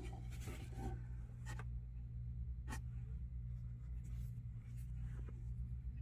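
Faint scattered clicks and light rubbing, about five or six short handling sounds, over a steady low hum.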